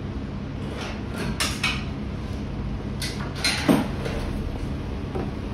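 Light clinks and knocks of small parts being handled, a few around a second in and a sharper knock about three and a half seconds in, over a steady low hum.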